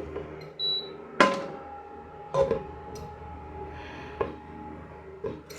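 Kitchenware being handled: about four knocks and clinks, the loudest about a second in, some leaving a short ringing tone.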